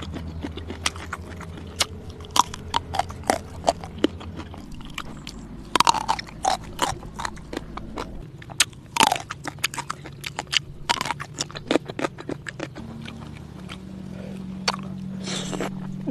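Close-up eating sounds of spicy red lobster: irregular crunching and chewing, with many sharp clicks and cracks.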